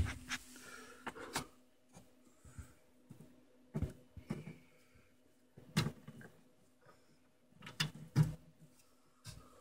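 Light knocks and rustles of hands handling the audio-video cables behind an entertainment cabinet, coming every second or two, over a faint steady hum.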